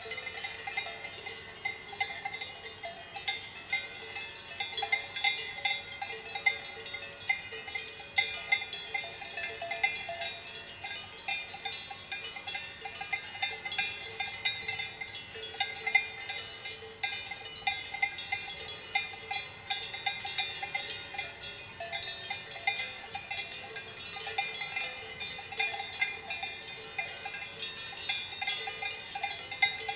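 Swiss cowbells worn by a grazing herd of cows, clanking irregularly and overlapping as the animals move their heads while grazing.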